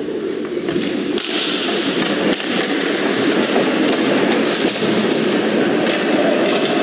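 Ice hockey play in an arena: skates scraping the ice and a few sharp stick-and-puck clacks over a steady arena din.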